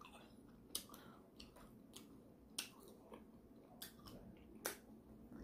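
Faint mouth sounds of a person eating pork and buckwheat dhindo by hand: a handful of short, wet smacks and clicks.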